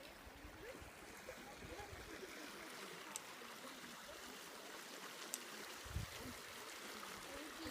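Faint, steady rush of a shallow stream flowing at a ford. A soft low thump about six seconds in.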